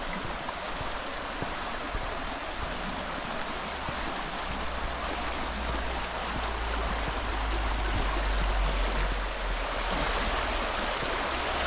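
River water flowing past in a steady, even rush. A low rumble joins about four seconds in and grows louder.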